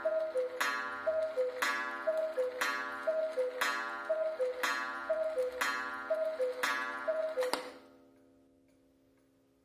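Wooden cuckoo clock calling the hour: the cuckoo's two-note call, high then low, from its bellows whistles, each call with a gong strike that rings on, about once a second, eight times. The last call ends near eight seconds in, leaving the gong dying away and the clock ticking.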